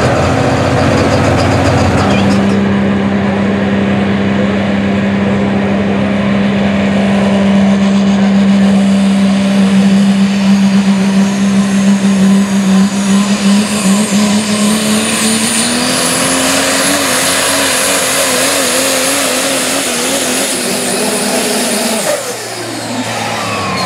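Super Stock diesel 4WD pulling truck at full throttle under the sled, its engine holding one steady high pitch. About two-thirds through the pitch steps up and wavers, with a high turbocharger whistle rising over it. Near the end the engine backs off suddenly as the pull ends.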